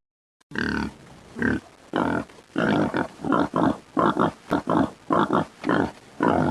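Pig grunting in a quick run of short, repeated grunts, about two or three a second, starting about half a second in.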